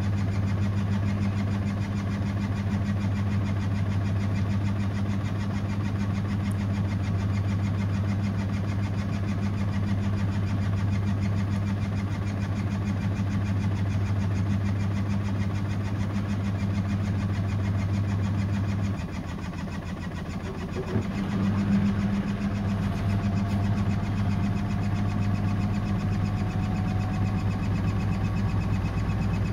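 Samsung front-loading washing machine running its prewash spin with an unbalanced load: a steady low hum that dips about two-thirds of the way through, a knock, then a motor whine rising slowly in pitch toward the end as the drum gathers speed.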